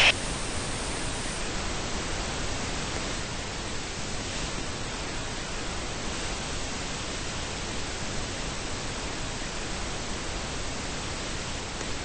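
Steady, even hiss like static or white noise, unchanging throughout.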